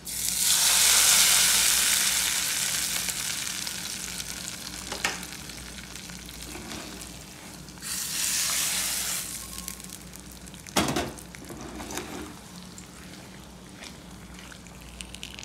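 Hot ghee-and-oil tempering of mustard seeds, dried red chillies and cashews poured into a pot of hot millet bisi bele bath, sizzling loudly at once and dying away over a few seconds. A second, shorter sizzle comes about eight seconds in as more of the tempering goes in, with two sharp knocks, and a ladle stirring the rice near the end.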